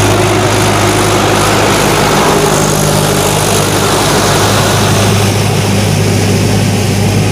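Swaraj tractor's diesel engine running steadily as the tractor drives through a flooded paddy field on cage wheels, with an even low hum.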